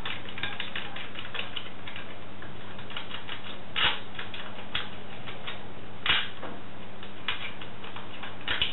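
Small metal clicks and clinks from hands working the metal mounting bracket on an old TV antenna's boom. Sharper knocks come about four seconds in, about six seconds in and near the end.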